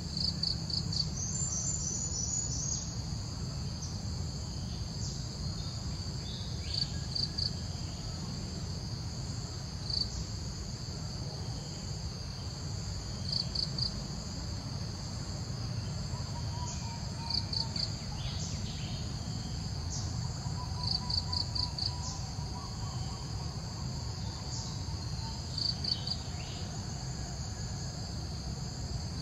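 Insects calling steadily in the surrounding vegetation: a constant high hum, with short trains of three to five sharp chirps every three or four seconds. A low rumble runs underneath.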